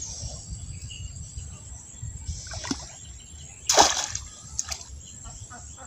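A bamboo fish trap being set down into shallow, weedy pond water: one short splash a little under four seconds in, with a smaller water sound a second or so before it.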